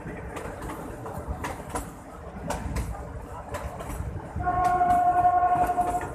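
Shimla narrow-gauge toy train running, its wheels clicking in pairs over the rail joints above a low rumble. About four and a half seconds in, the train's horn sounds one steady tone for about a second and a half, the loudest sound here.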